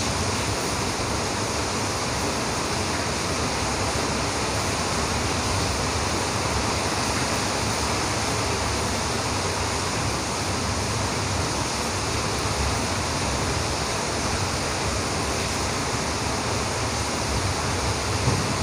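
Rain pouring down steadily: a constant, even rushing hiss with no break.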